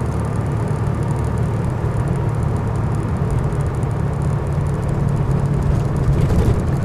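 Cabin sound of a 1935 Rolls-Royce 20/25 on the move: its straight-six engine and road noise give a steady low rumble, with the engine's hum growing a little stronger in the second half.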